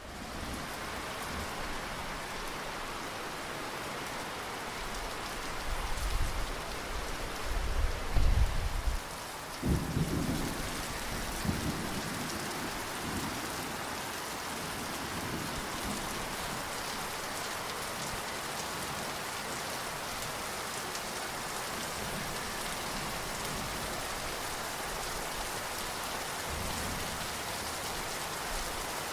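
Steady rainfall hissing throughout, with a low thunder rumble that builds about five seconds in, peaks in two heavy rolls a few seconds later, and dies away; a faint further rumble comes near the end.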